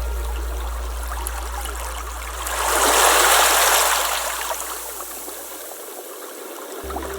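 Rushing water that swells loudly for a couple of seconds in the middle, then settles back. A low held tone from the background music fades out about six seconds in and comes back near the end.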